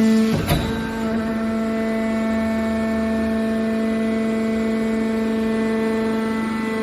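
A machine running with a steady pitched hum, with one short knock about half a second in.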